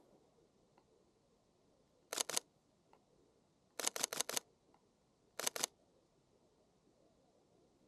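Sony A7 III camera shutter firing in short bursts: two quick clicks about two seconds in, a run of about five near four seconds, and two more a little after five seconds.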